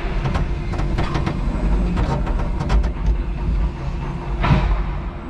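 5-ton electric forklift truck driving across a concrete warehouse floor: a steady low rumble with many clicks and rattles from the mast and forks, and a short rush of noise near the end.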